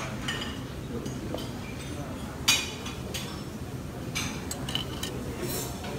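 Metal tongs clinking against a ceramic plate while noodles are served: a few sharp clinks, the loudest about two and a half seconds in, over a steady low background hum.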